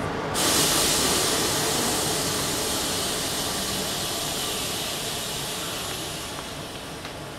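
Compressed air hissing from the stopped passenger train, most likely its air brakes venting. The hiss starts suddenly just after the start and slowly dies away over about six seconds, over a low steady rumble.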